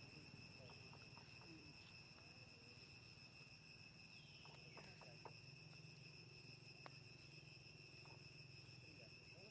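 Near silence with a faint, steady, high-pitched insect drone from crickets in the forest. A faint falling whistle comes about halfway through, and there are a few soft clicks.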